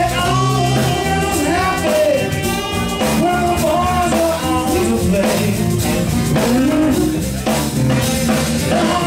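Live blues-soul band playing: drums, electric bass, electric guitar, keyboards and congas, with a bending melody line on top.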